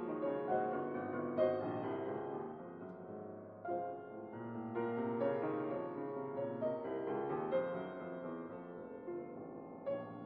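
Background piano music: a melody of overlapping notes.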